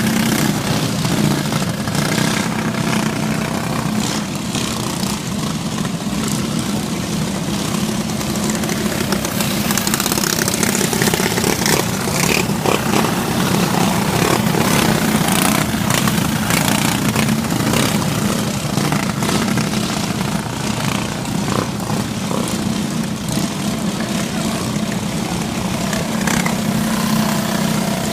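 Briggs & Stratton Animal single-cylinder four-stroke kart engine running hard through laps. Its note holds fairly steady, with rushing noise and small knocks over it.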